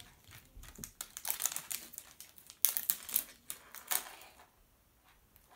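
Wrapping on a layered surprise ball crinkling and crackling as it is peeled off by hand, in quick runs of crackles, loudest in the middle and dying away near the end.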